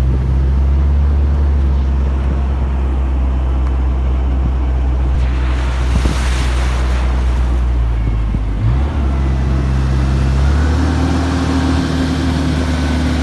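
Amphicar's four-cylinder engine running steadily as the car drives into the lake, with a rush of splashing spray about six seconds in as it hits the water. About ten seconds in the engine note changes and a new steady hum comes in as the car motors along afloat.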